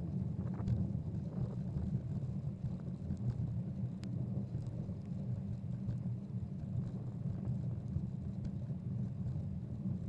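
Steady low rumble of a bicycle rolling over a snow-covered path, tyre and wind noise on the bike-mounted camera, with a few faint ticks.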